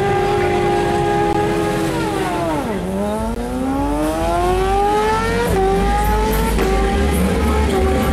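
Drag-racing motorcycle engine revving hard: it holds a high steady pitch, drops sharply about two seconds in, then climbs again with a few sudden steps in pitch.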